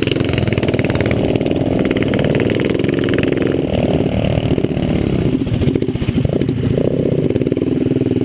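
Small mini-bike engine running hard under the rider, its pitch rising and falling as the throttle is worked through the turns.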